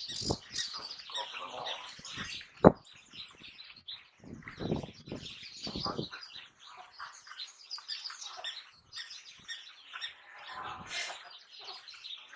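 African wild dogs twittering and chirping in short high-pitched bursts while feeding at a kill, with a single sharp snap about three seconds in.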